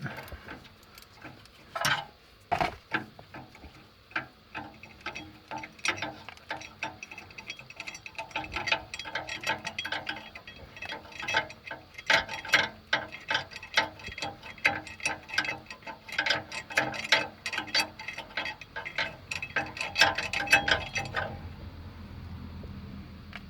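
Ratchet spanner clicking rapidly in long runs as a nut is wound off under a car, after a couple of sharp metal knocks early on; the clicking stops near the end.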